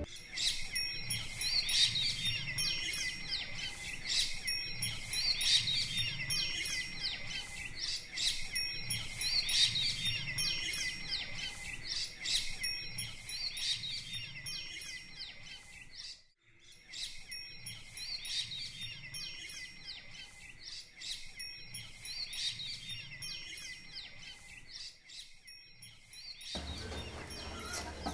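Birds chirping and calling repeatedly over a steady high-pitched background. The sound drops out for a moment about halfway through, then carries on.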